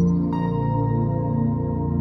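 Background music: calm new-age ambient music of long held tones, with a new note coming in about a third of a second in.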